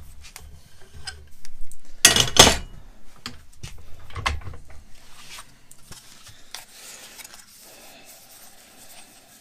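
Clanking and rubbing of a steel C-clamp and bench vise as the clamp is undone and the plywood form blocks are lifted out; the loudest clank comes about two seconds in, a smaller one a couple of seconds later, then lighter handling noise.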